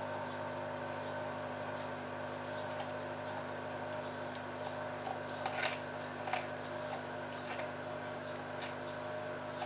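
A large dog gnawing on a bone: scattered short crunching clicks, the clearest about halfway through, over a steady mechanical hum.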